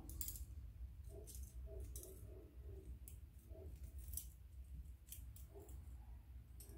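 Light metallic clicks and small jingles of a steel wire puzzle and its little chain being handled, scattered irregularly about a second apart, over a steady low hum.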